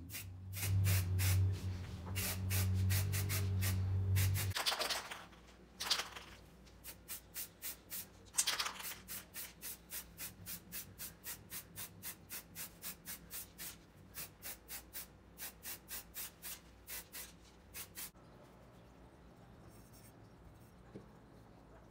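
Rhythmic back-and-forth rubbing strokes by hand on a workpiece, about two to three a second. A machine's steady low hum, the loudest sound, runs under them for the first four seconds or so and then stops.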